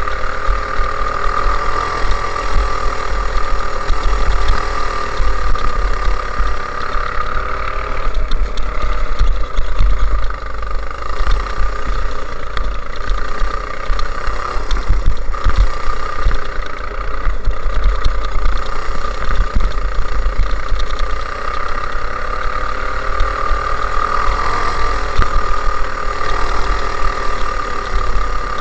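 Go-kart engine running hard on track, its pitch rising and falling over and over as the kart accelerates out of corners and slows into them. A heavy low rumble lies underneath throughout.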